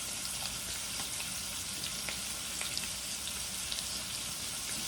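Tri-tip steaks sizzling steadily as they sear in butter in a hot pan, with small pops and crackles.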